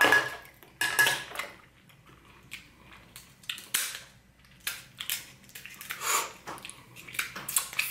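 Kitchen scissors snipping through the shell of a cooked king crab leg: a string of sharp, irregular cracks and crunches.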